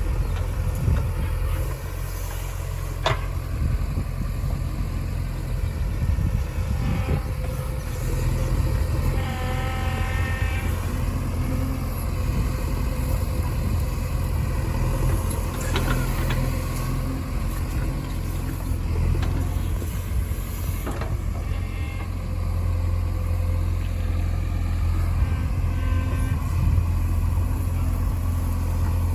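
Diesel engines of a JCB 3DX backhoe loader and tractors running steadily, with a sharp click about three seconds in and a brief higher-pitched tone lasting about two seconds, starting around nine seconds in.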